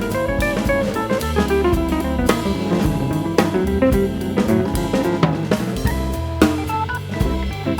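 Background music: an upbeat instrumental with a drum kit playing a steady beat under melodic guitar and keyboard lines.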